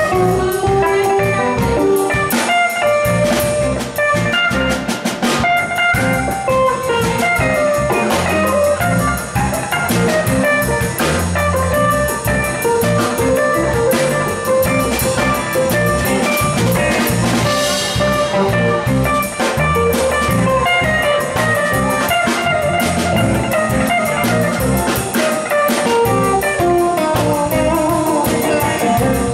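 Live rock band playing an instrumental passage: electric guitars over bass guitar and drum kit.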